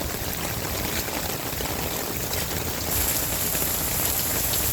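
Steady rain falling on a saturated, waterlogged yard: an even hiss of rain that gets slightly louder about three seconds in.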